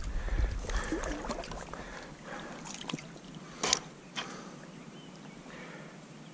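Water splashing and sloshing from a hooked smallmouth bass being brought in by hand in shallow river water, fading as the fish calms, with a few short clicks and one sharper click a little over halfway through.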